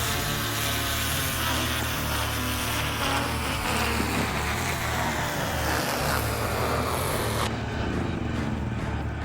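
Pressure washer spraying a 700R4 transmission case: a steady hiss of water jet over the hum of the washer's motor. About seven and a half seconds in, the highest part of the hiss drops off sharply while the hum goes on.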